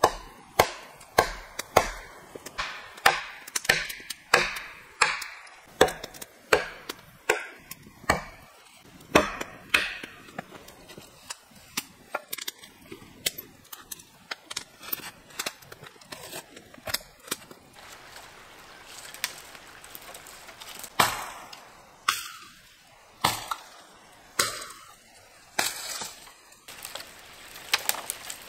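Wood being chopped with a string of sharp strikes, about two a second at first, then slowing to roughly one a second with short pauses in the later part.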